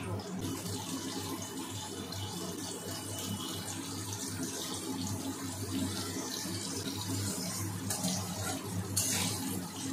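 Potato chunks frying in hot mustard oil in a metal kadai, a steady sizzle. Near the end a spatula stirs them and the sizzle briefly gets brighter.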